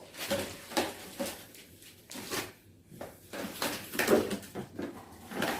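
Light, irregular knocks and clicks as vacuum cleaner parts and hose are picked up and handled.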